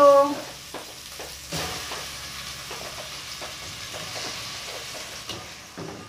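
Seasoned chicken pieces going into hot oil and browned onion in a pot, frying with a steady sizzle that swells about a second and a half in. Scattered knocks and scrapes of the pieces and spatula against the pot run through it.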